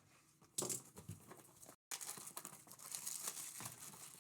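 Plastic wrapper of a trading-card pack crinkling and tearing as it is opened, a sharp rip about half a second in, then steady crackling.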